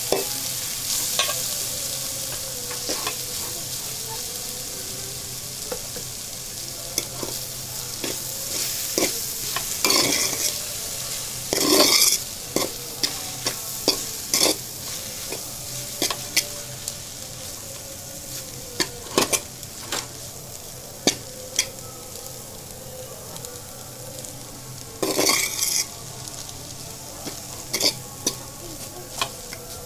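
Maggi noodles and vegetables sizzling in a stainless steel pot while a spatula stirs them, with repeated knocks and scrapes of the spatula against the metal. The sizzle slowly eases, and there are louder scraping bursts about ten, twelve and twenty-five seconds in.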